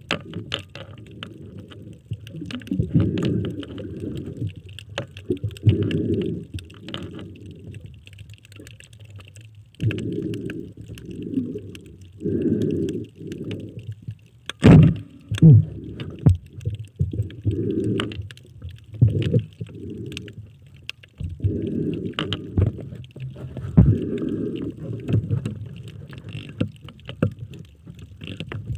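Underwater sound picked up by a camera held below the surface: irregular muffled low rumbling surges of water moving around the camera and diver, with scattered sharp clicks and knocks (the loudest about halfway through) over a faint high crackle.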